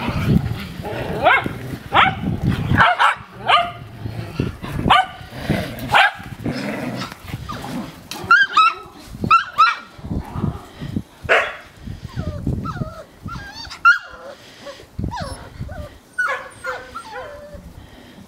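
Six-week-old puppies playing, with many short high-pitched yaps and squeals, some coming in quick runs.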